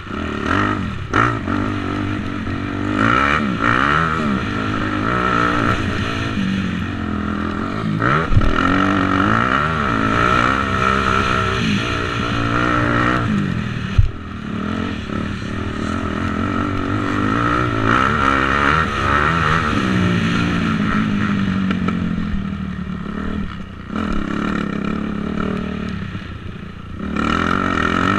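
250-class motocross bike engine revving hard and backing off again and again, its pitch climbing and falling. Two sharp knocks stand out, the louder one about halfway through.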